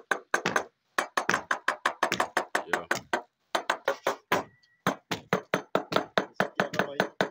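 A thin rod tapped rapidly on floor tiles, about seven sharp taps a second with a few short pauses: a sounding test to find hollow tiles with voids beneath them.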